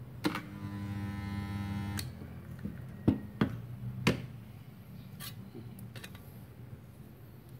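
Multipro 2.5 kVA portable spot welder switching on with a click and its transformer buzzing steadily for about a second and a half while weld current passes through two 0.5 mm steel sheets, ending in another click. Three sharp clacks follow as the lever and the copper electrode arms are released.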